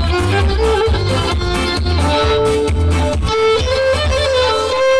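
Solo violin playing a melody of held, sliding notes over a pulsing low bass accompaniment that thins out about three seconds in.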